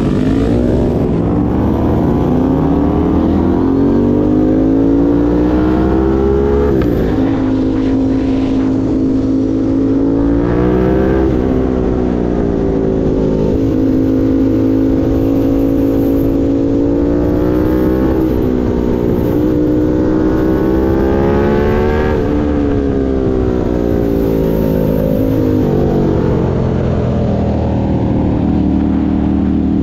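Aprilia Tuono 660 Factory's parallel-twin engine heard onboard at track pace. It climbs in pitch through the gears, drops sharply at each upshift and slides down under braking several times, over steady wind rush.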